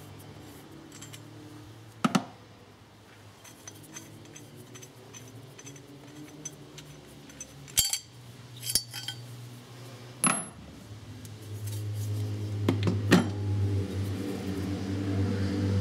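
Opel Corsa C ignition coil pack, with its metal mounting rail, being handled and pressed back onto the spark plugs. It gives a handful of sharp clicks and clinks of plastic and metal, several seconds apart.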